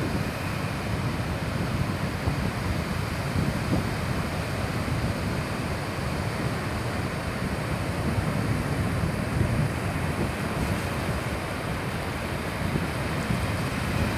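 Sea surf breaking and washing up a sandy beach, with wind buffeting the microphone in gusts.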